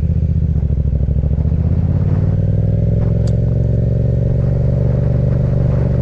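Yamaha MT-07's parallel-twin engine running, its pitch rising a little about two seconds in and then holding steady.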